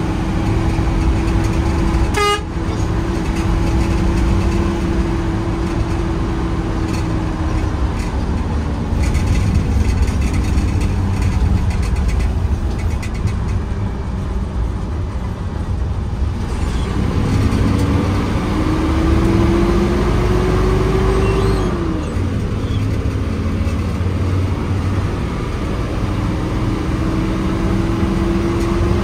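Hino AK8 bus's diesel engine running on the road with heavy road rumble. Its drone climbs in pitch for several seconds, drops sharply about three-quarters of the way through as at a gear change, then climbs again. A short horn toot sounds about two seconds in.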